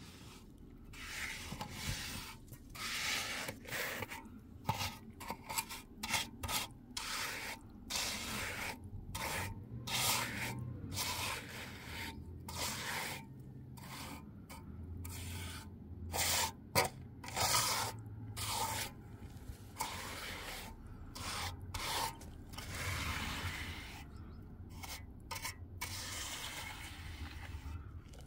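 Steel trowel scraping and smoothing fresh cement mortar in many quick, irregular strokes.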